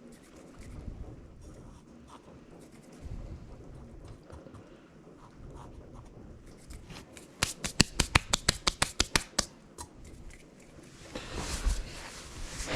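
Light handling noises, then a quick run of about fifteen sharp clicks over roughly two seconds, followed by a rustling hiss near the end.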